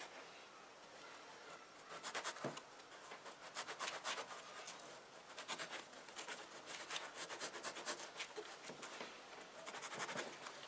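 Small knife blade cutting into a foam motorcycle seat, a rapid series of short sawing strokes in several bursts.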